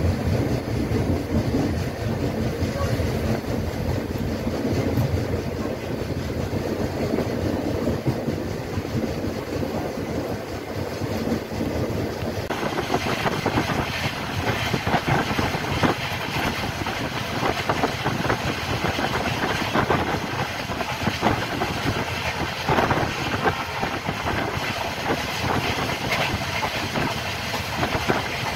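Passenger train running at speed, heard from inside a coach by an open window: a steady rumble and rattle of steel wheels on the rails. About twelve seconds in, the noise turns brighter and hissier.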